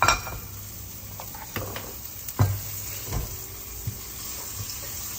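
Chopped peppers and onion frying in hot oil in a pan, a steady sizzle, while a spatula stirs and knocks against the pan several times. The loudest knocks come at the start and about two and a half seconds in.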